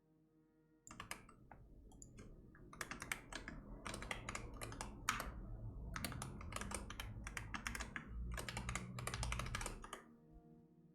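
Typing on a computer keyboard: a quick, uneven run of keystrokes that starts about a second in and stops near the end.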